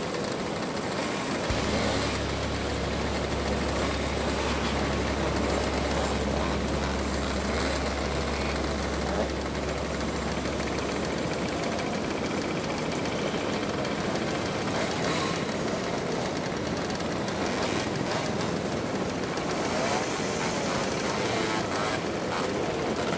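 A group of two-stroke mopeds running together at cruising pace, a dense, steady mix of engine buzz. A low steady hum sits underneath from about a second and a half in until about halfway through.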